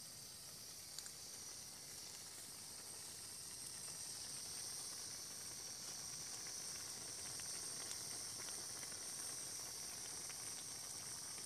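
Faint, steady hiss of a small gas-cylinder stove burner with a pot of noodles and tomatoes boiling on it, with scattered tiny ticks and pops.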